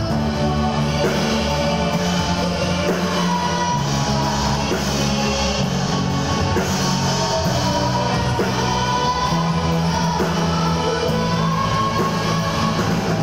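Live rock band playing through amplifiers: electric guitars, bass, keyboard and drums in a steady, loud groove.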